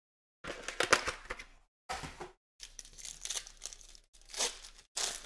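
Foil wrapper of a Panini XR football card pack being torn open and crinkled by hand, in several short bursts with brief gaps between them.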